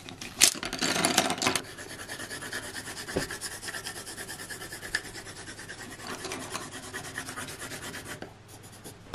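Coloured pencils clicking and clattering as a bundle of them is handled, then a pencil scribbling back and forth on paper over a wooden table in quick, even strokes, several a second. The scribbling stops shortly before the end.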